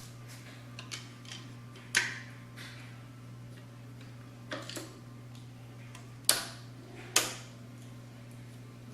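Scattered sharp clicks and knocks, three of them louder than the rest, over a steady low hum: a Califone portable record player being handled and set up before playing.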